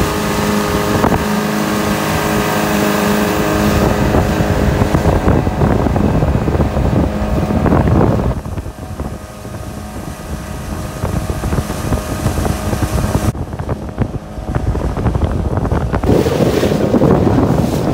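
50-horsepower Mercury outboard running at speed, with water rushing past the hull and wind on the microphone. The engine's steady tone fades about halfway through, leaving mostly wind and water noise, which swells again near the end.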